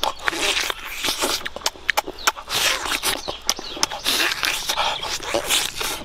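A person biting into and chewing roasted chicken: a steady run of wet mouth clicks, lip-smacking and short tearing sounds of meat.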